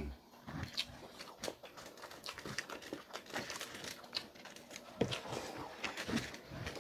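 Close-up eating sounds: chewing and lip smacking with irregular wet clicks, and light crinkling from food being picked off a foil-lined tray by hand.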